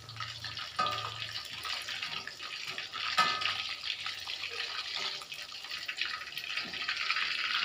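Chicken pieces frying in a wok of hot oil, a steady sizzle, as a metal skimmer and tongs lift them out. Metal clinks sharply against the wok twice, about one and three seconds in. The chicken is lifted out once cooked through but before it turns crisp.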